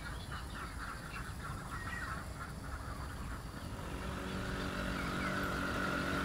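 Birds calling and chirping, with short rising and falling calls. From about two-thirds of the way in, a motorcycle engine approaches and grows steadily louder.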